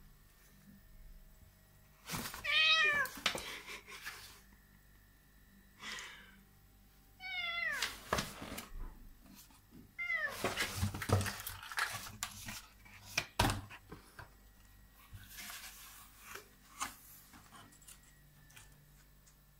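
Domestic cat meowing about three times in short, falling calls while a cardboard box scrapes and rustles against the floor. One sharp thump comes a little past the middle.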